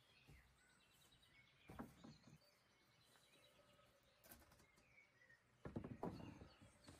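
Large sheet of OSB board handled and laid down on a wooden trestle bench: a few dull knocks about two seconds in, then a louder clatter of thumps near the end as the board lands on the bench. Faint birdsong behind.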